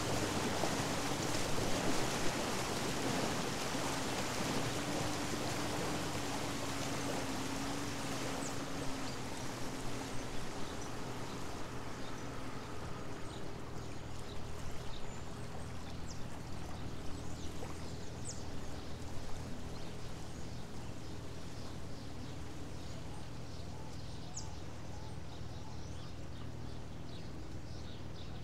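A passing boat's engine drones and fades away over the first ten seconds or so, along with the wash of water from its wake. After that, scattered faint bird chirps come through.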